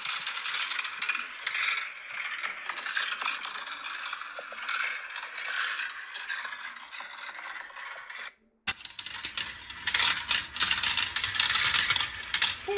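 Marbles rolling and rattling down a plastic marble-run track: a continuous rolling rattle that cuts off about eight seconds in, then resumes as busier clicking and clattering.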